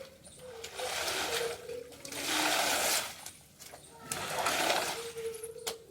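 Water splashing in three long swooshes, each about a second long, with short gaps between them.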